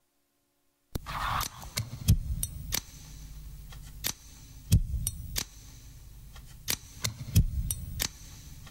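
After about a second of silence, scattered sharp clicks and knocks at irregular intervals over a low steady hum.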